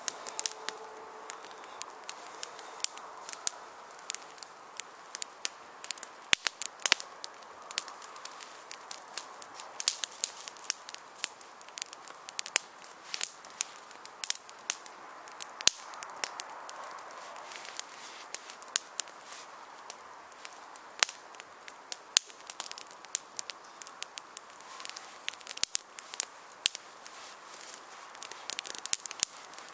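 Small kindling fire of split sticks and dry grass crackling as it catches, with frequent irregular sharp snaps and pops over a faint steady rush.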